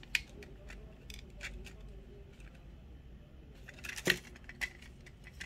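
Faint, scattered small plastic clicks and taps from a bracket inside a DJI Mini 2 drone being pressed to clip it into place, the loudest click about four seconds in; the bracket does not seat.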